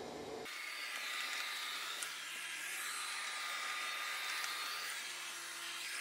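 Samsung Jet Bot Combo AI robot vacuum running on shag carpet in vacuum mode, mop pads lifted. It makes a steady, airy whir with a faint high whine, which comes in abruptly about half a second in.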